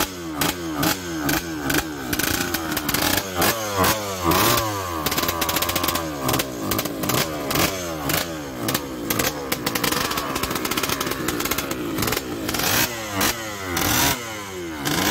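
Two-stroke motorcycle engine being revved over and over with quick throttle blips, its pitch rising and falling again and again, with a sharp crackling exhaust note.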